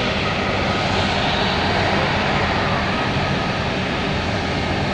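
Airbus A330-300's Rolls-Royce Trent 700 turbofan engines running steadily as the airliner rolls along the runway, a continuous jet noise with a faint high whine in it.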